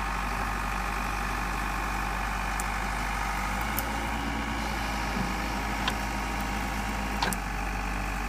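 Backhoe loader's diesel engine idling steadily, with a few light clicks.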